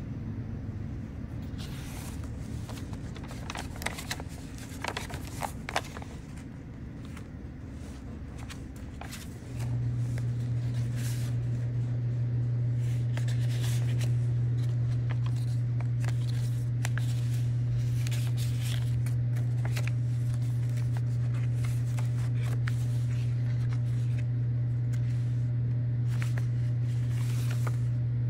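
Paper pages and tucked-in cards of a handmade envelope journal being handled and flipped: crisp rustles and soft taps. About a third of the way in, a steady low hum starts and stays on, louder than the paper.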